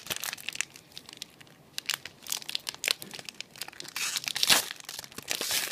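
Clear plastic wrapper of a trading-card box-topper pack crinkling in scattered crackles as it is handled and opened, louder about four seconds in.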